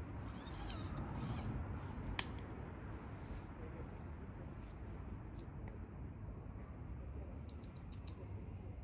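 Crickets trilling in a steady high tone over a low background rumble, with one sharp click about two seconds in.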